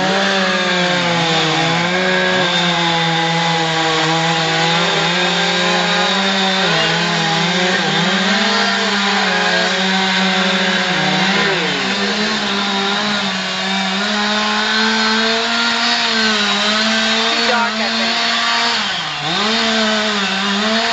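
Chainsaw engine running steadily at high speed, its pitch dipping briefly several times.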